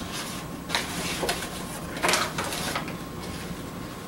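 Paper crinkling and rustling in short bursts as it is handled, loudest about two seconds in.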